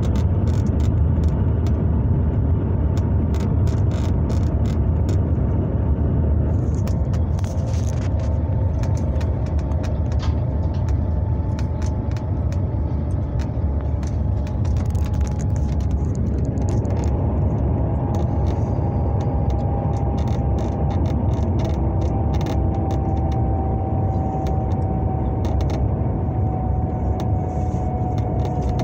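Shanghai Maglev train cabin noise at speed: a steady low rumble and rushing noise, with a faint whine that slowly falls in pitch and scattered light clicks and rattles.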